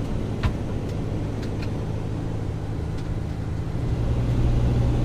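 Camper van engine running as it drives slowly, heard from inside the cab. A light click or two comes early on, and the engine grows louder about four seconds in as it pulls harder.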